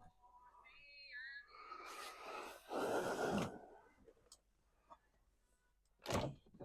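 Plastic dashboard parts being handled and fitted: a short squeak, a scraping rustle, then a sharp knock near the end.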